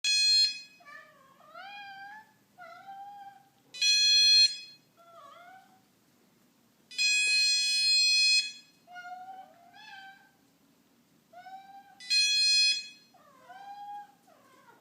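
Electronic alarm on fishing gear beeping in four high, steady-pitched bursts, the longest about a second and a half, with cats meowing back in the gaps between them, several short rising-and-falling meows each time.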